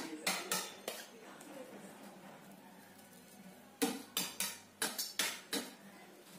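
A metal cake palette knife clinking and knocking against hard surfaces, giving sharp clicks: a few near the start, then a quick run of about six knocks between about four and five and a half seconds in.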